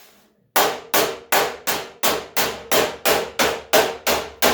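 Hammer striking the sheet-steel front fender of a 1978 Ford F100, about three quick, even blows a second, each with a brief metallic ring, knocking out small dents and low spots. The strikes start about half a second in.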